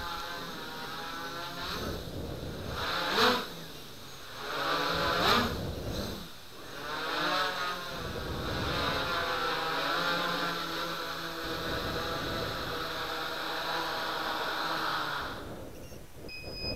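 Brushless motors and propellers of a small F330-size quadcopter humming in a hover, the pitch wavering and swelling several times with throttle changes. The motors spin down and stop about a second and a half before the end, and a short high beep follows.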